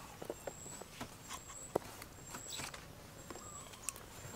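Thin sticks of kindling being poked and laid into a clay charcoal stove: light, scattered clicks and taps, with one sharper knock a little under two seconds in. A short high chirp recurs about once a second.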